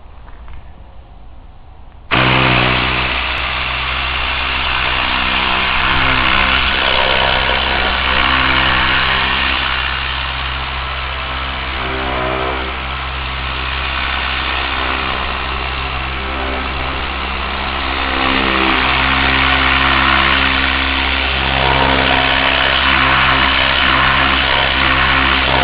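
Tornador air cleaning gun blasting compressed air: a loud hiss with a buzzing hum that starts abruptly about two seconds in and holds steady.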